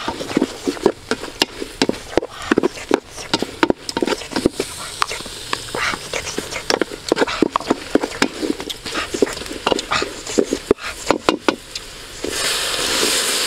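A spoon scraping and clacking against a metal pot as lemongrass, galangal and lime leaves are stir-fried, a quick irregular run of scrapes and knocks. About twelve seconds in, water is poured into the hot pot and a steady hiss takes over.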